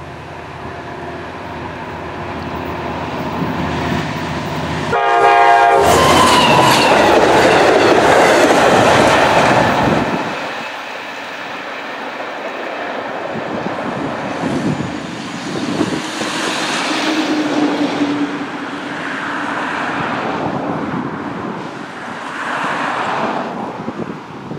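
LIRR EMD DE30AC diesel-electric locomotive approaching with its engine running and growing louder, then a short blast of its K5LA horn about five seconds in, dropping in pitch as it reaches the camera. The locomotive and bi-level coaches pass loudly with wheel noise on the rails for several seconds, then fade as the train draws away, while cars pass on the road alongside.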